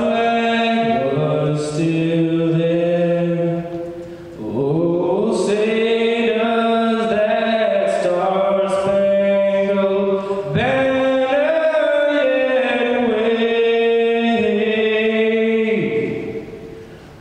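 Chant-like vocal music: voices holding long sung notes in three phrases of several seconds each, with short breaks between them.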